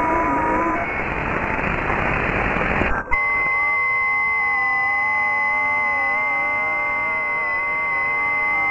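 Shortwave receiver audio from an unknown 160-metre-band signal around 1841.5 kHz, received in AM. At first several wavering tones sound, then about a second in they give way to a rush of noise. At about three seconds there is a sudden cut to a chord of steady, slightly wobbling tones led by a high whistle.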